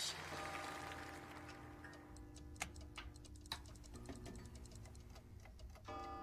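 Mechanical clocks ticking, many small overlapping ticks with a couple of louder clicks, over a soft sustained music chord that swells with fuller tones near the end.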